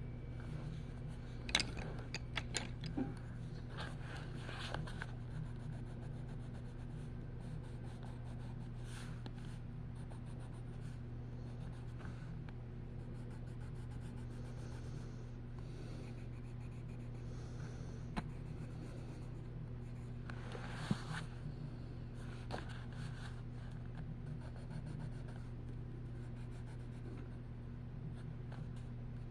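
Colouring on paper: a colouring tool scratching in repeated strokes, over a steady low electrical hum, with a few light clicks near the start and twice more later on.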